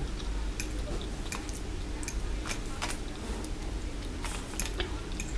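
A person chewing a mouthful of breakfast food, close to the microphone, with scattered soft clicks and wet mouth sounds.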